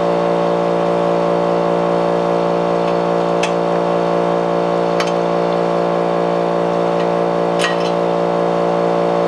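A steady machine drone at one unchanging pitch, with a few sharp metallic clicks about three, five and seven and a half seconds in as a bolt is worked loose by hand.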